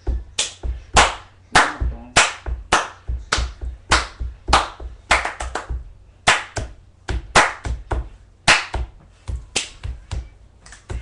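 Hip hop dance beat: a sharp clap on every beat, a little under two a second, over pulsing deep bass.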